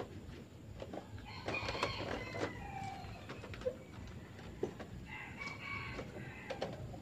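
A rooster crowing twice, each crow lasting about a second and a half, with a few light knocks in between.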